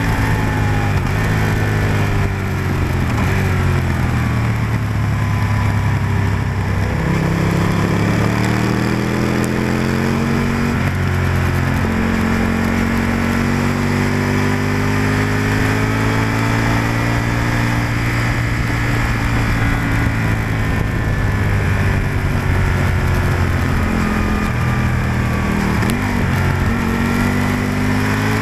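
Aprilia RSV-R sportbike's V-twin engine heard onboard at track pace. Its note falls as the rider brakes and shifts down for corners, then rises again under acceleration, more than once.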